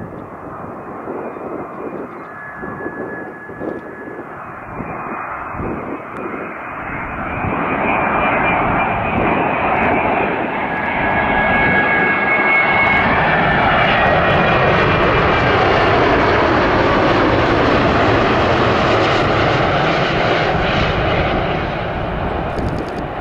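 Boeing 787-9 Dreamliner jet engines howling on final approach. A steady whine sits over the engine noise, which grows much louder about a third of the way in as the airliner passes close, while its tones slide lower in pitch.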